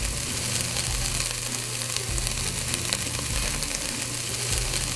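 Browned ground turkey sizzling steadily in a hot cast iron pot as chili seasoning is stirred in, a steady hiss with small crackles.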